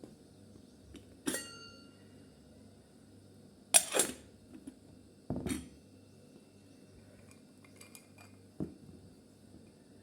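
Kitchenware being handled: a ringing clink a little over a second in, a louder clatter near four seconds, another near five and a half, and a small knock near the end.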